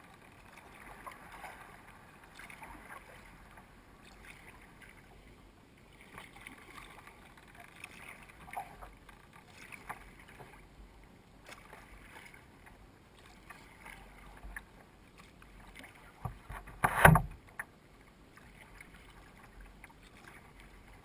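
Water splashing and lapping against the hull of a Current Designs sea kayak under way, with irregular small slaps every second or so and one loud splash near the end.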